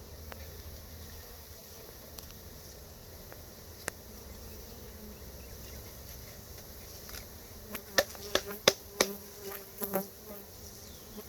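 A mass of honeybees buzzing steadily as they are shaken into a hive from a package. In the last few seconds there is a quick run of sharp knocks and clicks, louder than the buzzing.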